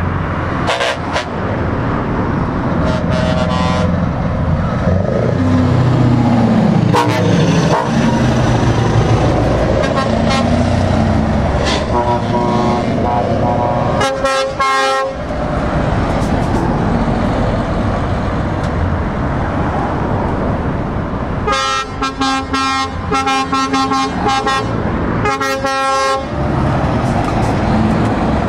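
Heavy lorries driving past in convoy, diesel engines running, with multi-note air horns sounded repeatedly: brief blasts about three seconds in and again around twelve to fifteen seconds, then a longer run of horn blasts from about twenty-one to twenty-six seconds.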